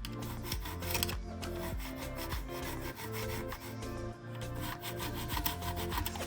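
Old carved wood being rubbed down by hand in quick, repeated rasping strokes to take a little off the carving and level it. Background music plays under it.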